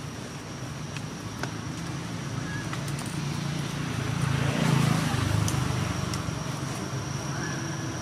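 A motor vehicle passing: a low engine rumble with road noise that swells to a peak about five seconds in and then fades.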